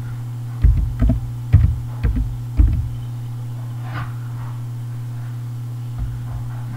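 Typing on a computer keyboard: five keystrokes in quick succession, the five letters of a short word, followed by two fainter clicks, over a steady low hum.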